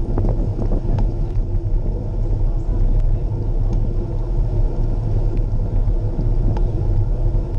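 Steady wind rumble on the microphone of a camera riding on a moving bicycle, mixed with tyre noise from the road. A few faint clicks come through.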